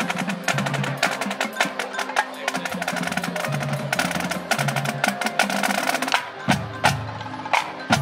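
Marching drumline playing: rapid snare drum strokes and rolls over a stepping run of tuned bass drum notes, ending in a few heavy accented hits.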